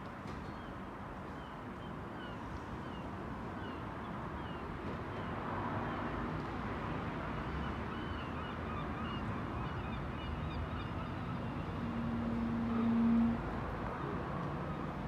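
A train approaching the level crossing, its running noise building from about five seconds in, with a brief single-note horn about twelve seconds in. Birds chirp repeatedly throughout.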